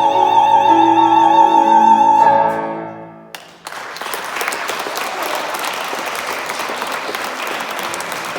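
A singer with piano holds the long, high final note of a zarzuela song with vibrato; it ends about two and a half seconds in. After a short pause, audience applause begins and carries on.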